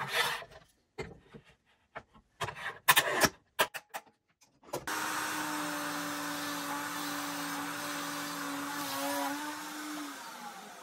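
A few sharp clicks and knocks of clamps and workpiece handling, then about five seconds in an electric power-tool motor switches on and runs steadily with a hum. Near the end it is switched off, its pitch falling as it winds down.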